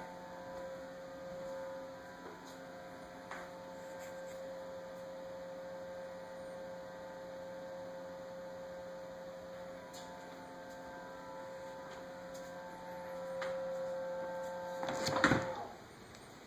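Samsung refrigerator running with a steady, high-pitched hum. About fifteen seconds in there is a short, loud clatter, and the hum cuts off.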